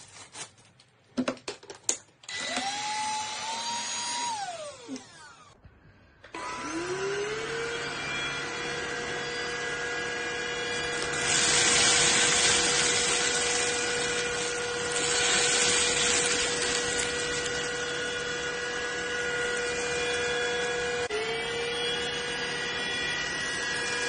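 Cordless stick vacuum: a few plastic clicks as the parts are fitted together, then the motor whines up briefly and winds down. It starts again and runs with a steady high whine. For about four seconds in the middle a louder hissing rush of air comes through as the floor brush sucks up scattered debris, and near the end the motor pitch dips briefly and picks up again.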